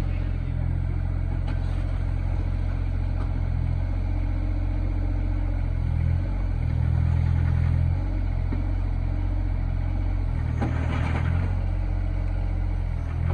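Hitachi ZX26U mini excavator's diesel engine running steadily as the machine moves on its tracks, its note shifting and getting louder for a couple of seconds midway as load comes on. A short burst of noise comes later on.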